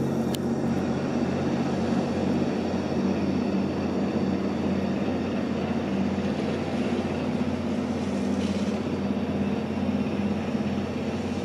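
Ship diesel engines running with a steady low drone as a patrol vessel and a tug move past close by.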